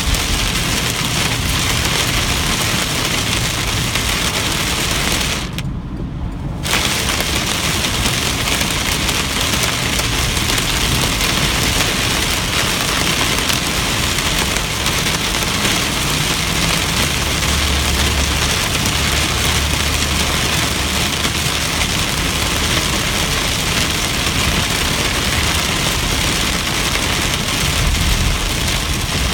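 Heavy rain pelting a moving car in a thunderstorm, a loud, dense hiss over the low hum of the car. The high hiss cuts out for about a second around six seconds in, and a few low rumbles swell in the second half.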